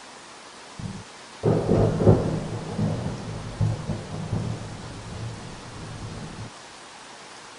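Steady rain with a thunderclap about a second and a half in. The thunder rumbles and rolls in several loud peaks for about five seconds, then cuts off sharply.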